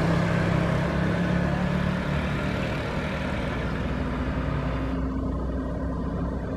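Tour bus engine running steadily, slowly getting quieter over the first few seconds.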